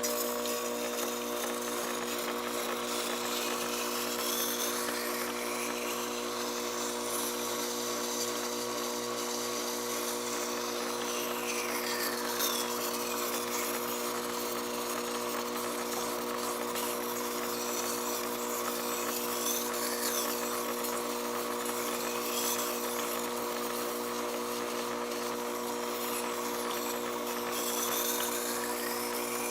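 Vertical water-cooled knife-sharpening grinder (SDG-150H) running steadily with a constant motor hum, with a few higher scraping sweeps over it.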